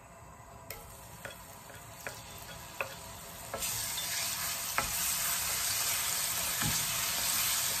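Minced garlic in hot oil in a frying pan, beginning to sizzle about three and a half seconds in and sizzling steadily after that, with a few light taps of a wooden spoon on the pan as it is stirred.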